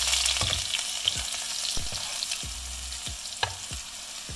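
Ginger-garlic paste frying in hot mustard oil in a steel kadhai, sizzling steadily and loudest at first, while a slotted spoon stirs it, clicking and scraping against the pan now and then.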